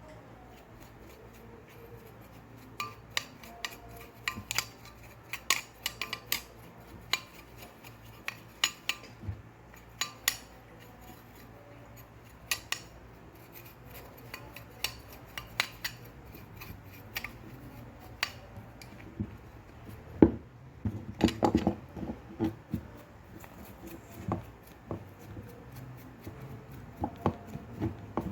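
Irregular clicks, taps and clinks of small metal and plastic parts being handled while a household electric fan is worked on. There is a burst of louder knocks about three-quarters of the way through.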